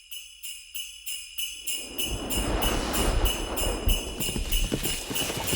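Sleigh bells jingling in a steady rhythm, about three shakes a second and growing louder, like an approaching sleigh. A low rumbling noise swells in beneath them from about a second and a half in.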